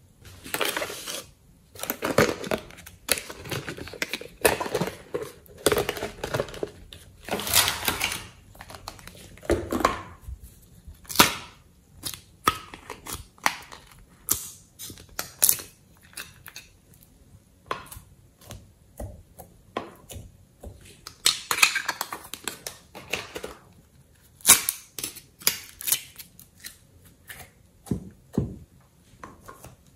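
Soft clay being pressed into and popped out of thin clear plastic molds: irregular crinkling, clicking and tapping of the plastic, with soft thuds as the clay shapes are set down.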